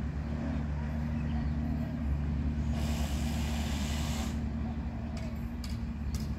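Garbage truck's diesel engine running steadily, with a burst of air-brake hiss about three seconds in that lasts a second and a half.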